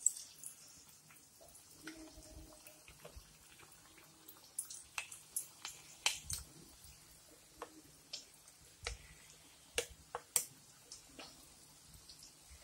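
Batter-coated ivy gourd bajji deep-frying in hot oil in a pan: faint, irregular crackles and pops.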